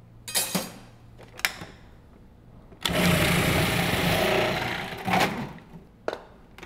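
Food processor motor running for about two seconds, its julienne disc shredding raw butternut squash chunks pushed down the feed tube, then winding down. A few sharp clicks and knocks come before and after it.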